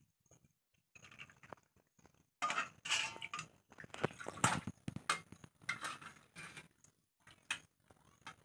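Steel serving spoon scraping and clinking against a steel kadai and steel bowls as curry is ladled out, in irregular short knocks and scrapes.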